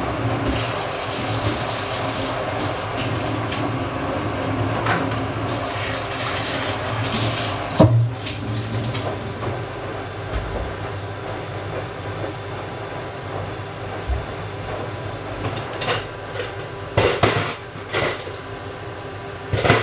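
Kitchen tap running into a sink for about the first half, with one knock shortly before the water stops. Near the end, a few short clatters of dishes or pots.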